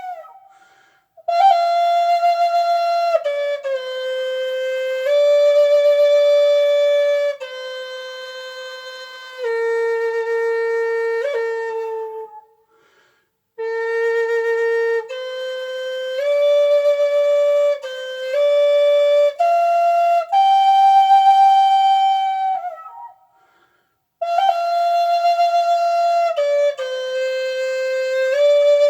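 Solo flute playing a slow melody of long held notes in phrases, with short silent pauses between phrases about a second in, near the middle, and a few seconds before the end.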